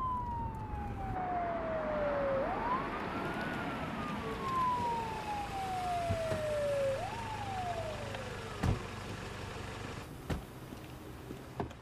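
Police car siren wailing in slow cycles, each rising quickly and falling slowly, the last cycle shorter as it winds down and stops about nine seconds in. Steady road and engine noise runs underneath.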